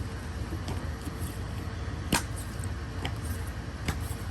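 Wall calendars being handled and leafed through: a few short, sharp paper crackles and taps, the loudest about two seconds in, over a steady low hum.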